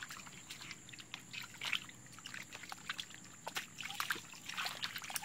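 Hands groping and sloshing in shallow muddy water, a string of small irregular splashes, drips and squelches.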